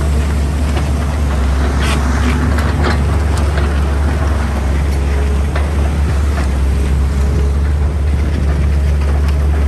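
Komatsu PC210 hydraulic excavator's diesel engine running steadily with a deep drone, while the bucket works the soil with scattered scrapes and knocks, most of them around two to three seconds in.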